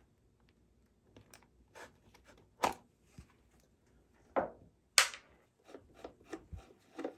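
Scattered clicks, knocks and scraping as a motorcycle side cover is worked loose and pulled off, with two sharper knocks about two and a half and five seconds in.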